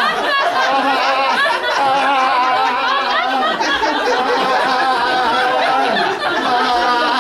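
A group of people laughing together continuously, many voices overlapping without a break, in a deliberate laughter-yoga exercise.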